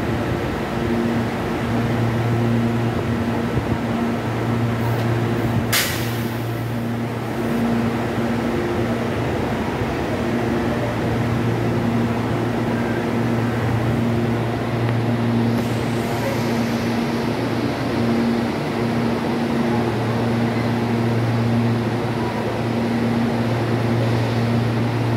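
Electric multiple-unit train standing at the platform, its onboard equipment humming steadily with a low tone that pulses on and off about once a second. A sharp click comes about six seconds in and a short hiss near the middle.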